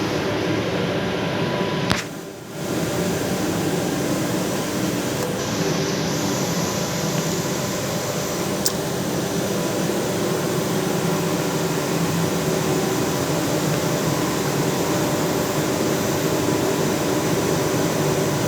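Plastic bag making machine running with a steady mechanical hum made of several held tones, dipping briefly about two seconds in, with a sharp click about halfway through.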